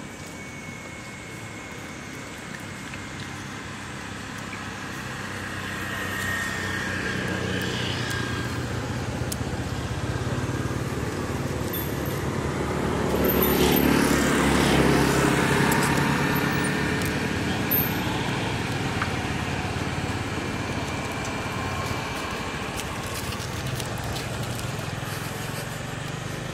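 A motor vehicle's engine approaching, passing close and fading away, loudest about halfway through.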